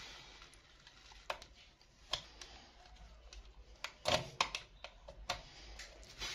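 Irregular small clicks and taps of a screwdriver and fingers working the retaining screw that holds the M.2 SSD in a laptop, with a quick run of clicks about four seconds in.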